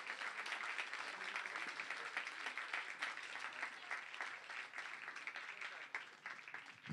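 Audience applauding, a dense patter of many hands clapping that thins out and dies away near the end, with a short low thump at the very end.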